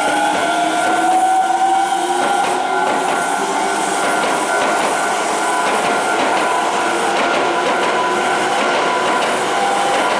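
Hankyu Senri Line electric train passing at a level crossing, its wheels running on the rails, with a motor whine that rises in pitch over the first few seconds.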